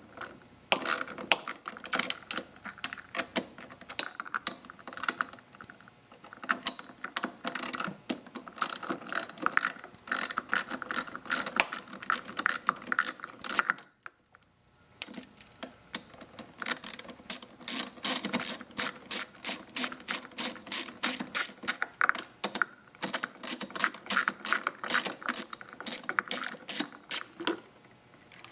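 Ratcheting hand tool clicking in rapid runs as the two small fuel door hinge screws are backed out, with a brief pause about halfway through.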